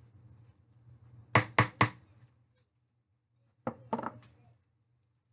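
A spatula knocked against the rim of the mixing container to shake off potato salad: three quick knocks, then two more about two seconds later.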